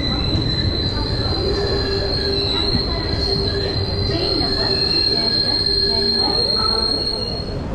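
Wheels of ICF passenger coaches squealing against the rails: one steady high-pitched squeal over the train's low running rumble, cutting off near the end.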